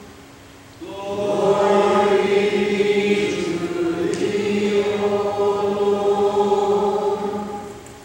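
Choir and congregation singing a short chanted liturgical response in held, steady notes. It comes in about a second in and fades out near the end.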